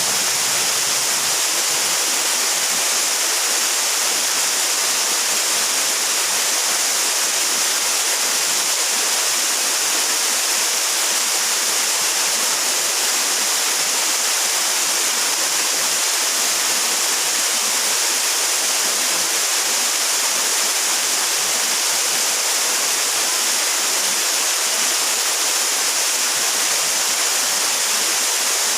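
Waterfall water rushing in a steady, even hiss.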